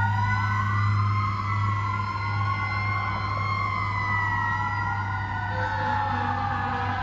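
Fire apparatus sirens wailing together, their pitches rising and falling slowly and crossing one another, over a steady low engine hum.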